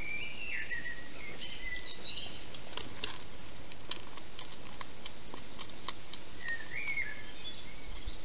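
A wild hedgehog eating at a feeding bowl, heard as scattered sharp clicks of crunching, while a songbird sings two short phrases of sliding whistled notes, one at the start and one about six and a half seconds in. A steady hiss underlies it all.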